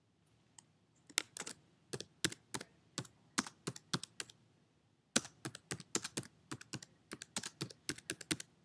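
Typing on a computer keyboard: a string of separate key clicks in two runs, with a short pause about halfway through.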